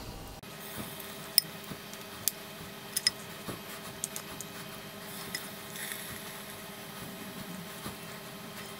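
Scattered soft taps and light squishes as pieces of wet, yogurt-marinated chicken are set one by one onto the metal wire grill of an air fryer basket, over a faint steady hum.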